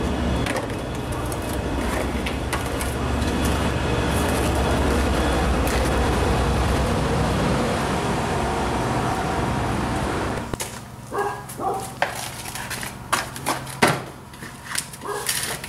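A steady motor-like rushing with a low hum underneath stops suddenly about ten and a half seconds in. After it, scattered knocks and clinks of terracotta flower pots being handled and set down.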